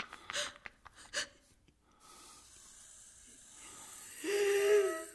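A person's short, sharp breaths or gasps, then a steady hiss that slowly swells, ending in a loud held cry a little over four seconds in that cuts off suddenly.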